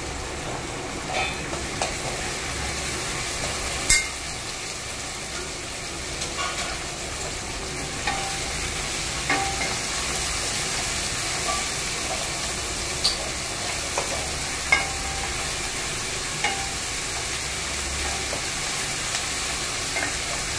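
Noodles and vegetables sizzling in a hot pot as they are stir-fried, with a spatula scraping and knocking against the pot now and then.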